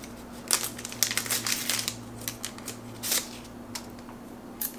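Paper sleeve of disposable wooden chopsticks crinkling and tearing as it is pulled off, in short irregular rustles and clicks, with the wood clicking in the hands.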